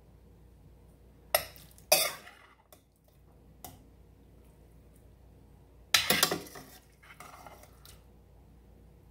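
Metal slotted spoon scraping and clanking against a stainless steel pot while scooping out cooked cabbage, in short bursts: two about one and a half and two seconds in, a light tap near four seconds, and a longer scrape around six seconds in, with quiet between.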